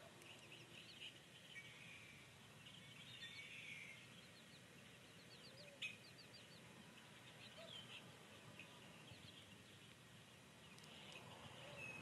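Faint, scattered high peeps of newly hatched chicks, with a single sharp click about six seconds in.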